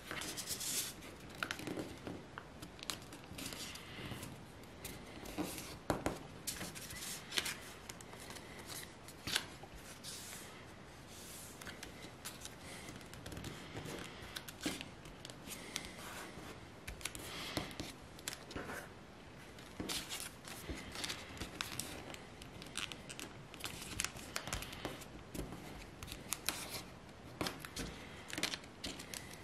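A sheet of white origami paper rustling and crackling as hands fold and crease it, with many short, irregular, crisp creasing swipes.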